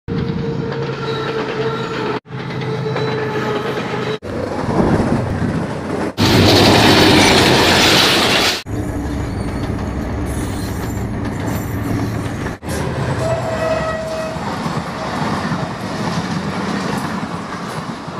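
Diesel-electric locomotives running, heard in short clips cut one after another, with rail noise and horn tones in places. The loudest part is a noisy passing stretch about six to eight and a half seconds in.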